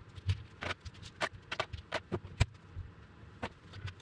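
Metal tools and engine parts clinking and knocking as they are handled and set down on a workbench: about a dozen irregular sharp clacks, the loudest a little past halfway.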